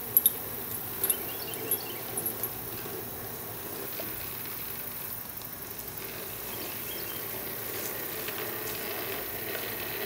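Plastic toy push lawn mower rolling over grass, with a few sharp clicks and rattles in the first couple of seconds, then a faint steady background.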